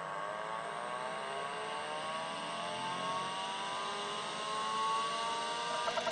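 Seagate ST-225 5.25-inch MFM hard disk drive spinning up at power-on: its spindle motor whine rises steadily in pitch as the platters come up to speed. Near the end a fast, even ticking starts, typical of the drive's stepper-driven heads beginning to move.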